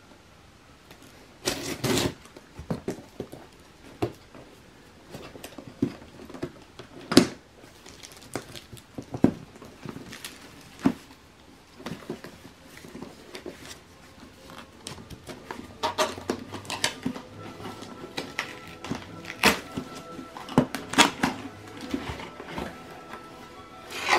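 Cardboard shipping box being handled and opened by hand: scattered knocks, taps and scrapes of cardboard. Soft background music with held notes comes in about two-thirds of the way through.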